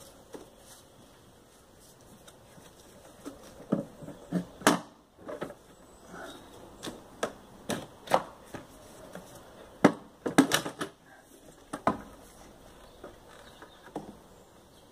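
Irregular clicks and knocks of hard plastic engine-bay parts being unclipped and handled, with the engine off, in clusters about four seconds in and again around ten seconds in.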